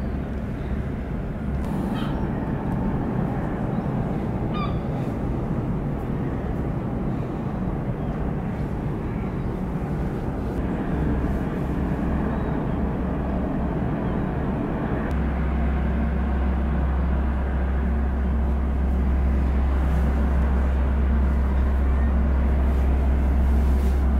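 Large ro-ro ferry's engines under way: a steady low drone with a few constant hum tones, the deep rumble growing stronger in the second half as the ship passes.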